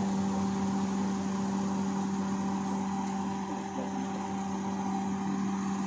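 Daihatsu Xenia Xi engine idling steadily under the open bonnet, with a constant low hum.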